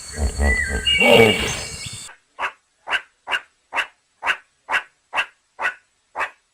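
Animal calls: a low, rumbling call for the first two seconds, then nine short, sharp calls, evenly spaced at about two a second.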